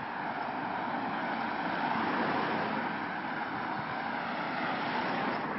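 A car driving past on the street: steady tyre and engine noise that swells to its loudest about two seconds in.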